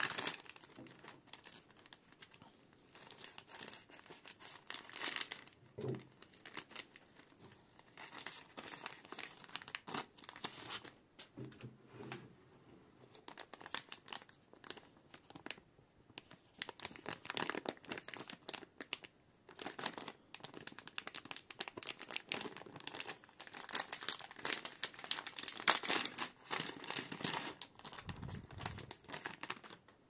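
Thin plastic packaging crinkling and tearing in irregular bursts, as a plastic mailer bag is pulled open and a plastic zip-lock pouch is handled and opened.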